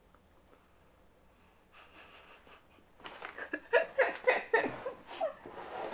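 Sharp, wheezy breaths as a man reacts to the burn of a mouthful of wasabi, turning about three seconds in into a run of breathless, gasping laughter.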